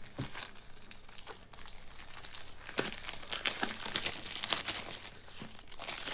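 Cellophane shrink-wrap being torn and peeled off a cardboard product box, crinkling with irregular sharp crackles.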